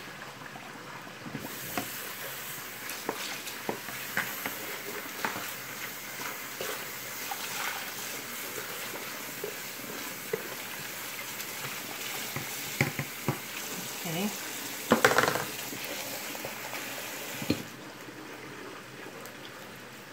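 Kitchen faucet running water into a plastic bowl held over a bamboo sticky-rice steaming basket, washing the last rice grains out, with light knocks and scrapes of the bowl. The water starts about a second and a half in, there is a louder rush about three-quarters of the way through, and the tap shuts off near the end.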